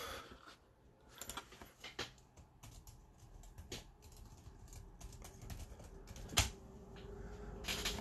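Faint, irregular clicking of computer keyboard keys being typed, with one sharper click a little over six seconds in.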